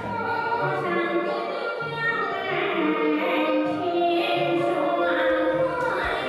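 Huangmei opera singing: a voice drawing out long, wavering sung notes.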